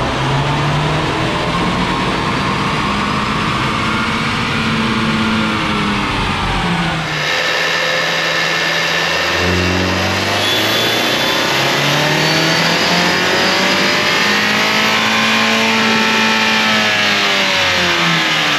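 The 2021 Ford Bronco's turbocharged 2.3-litre EcoBoost four-cylinder making wide-open-throttle pulls on a chassis dyno. The engine note climbs steadily in pitch, then falls away as each run winds down. This happens twice, with an abrupt change in the sound about seven seconds in.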